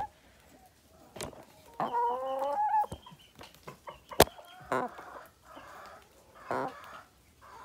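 Chickens clucking close to the microphone, with one drawn-out call about two seconds in. A single sharp tap about four seconds in comes as a hen pecks at the camera.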